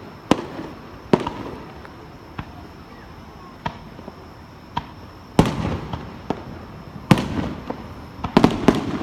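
Fireworks shells bursting overhead: a string of sharp bangs at irregular intervals, each followed by a rumbling echo, with a quick cluster of bangs near the end.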